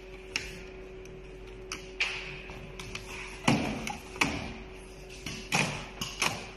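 Multi-head CNC leather sewing machine: a steady motor hum with irregular sharp knocks and clacks, not the quick even chatter of continuous stitching.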